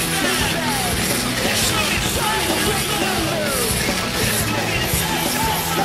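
Pop-punk band playing live in an arena, loud and unbroken distorted guitars, bass and drums heard from far back in the crowd, with voices yelling over it.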